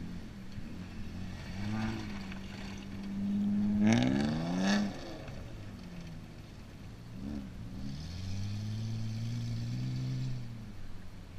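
Car engine revving on a dirt track, rising in pitch about four seconds in, the loudest moment, then an engine holding steady revs near the end.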